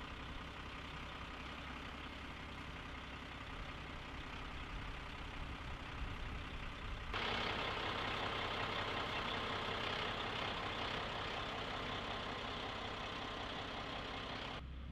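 A military cargo truck's diesel engine idling steadily. About halfway through it becomes louder and hissier.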